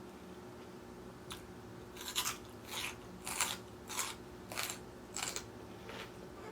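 Close-up chewing of crunchy raw salad vegetables: about six crisp crunches in a steady rhythm, roughly one every half second or so, starting about two seconds in.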